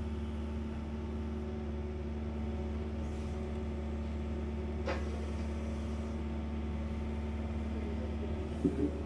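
Excavator's diesel engine running at a steady pitch, with a single click about halfway through.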